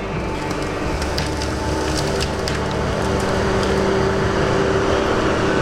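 Tigercat 234B knuckleboom loader running while its grapple handles a limby pine top, with many sharp cracks of branches snapping and wood splintering, most in the first half. The engine hum grows slightly louder in the second half.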